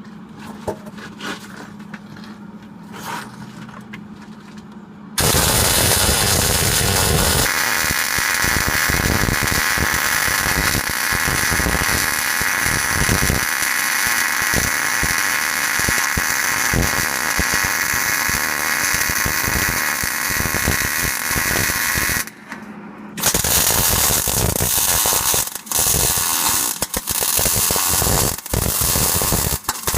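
Arc welding on steel. After a steady low hum, the arc strikes about five seconds in and crackles loudly and evenly for about seventeen seconds. It stops for about a second, then goes on as shorter welds with brief pauses between them.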